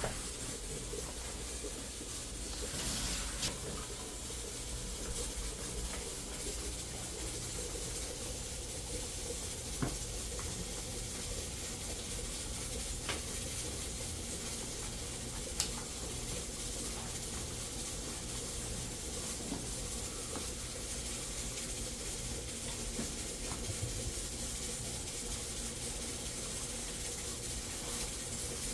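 Steady kitchen hiss with a low hum underneath, like steam from pots cooking on a stove. It swells briefly about three seconds in, and a few light clicks come through as hands mix flour dough in a plastic bowl.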